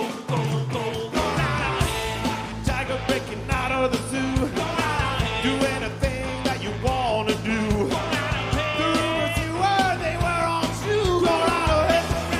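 Garage rock band playing live: a shouted, yelling lead vocal over driving drums, electric guitars and bass, with the bass entering about a second in.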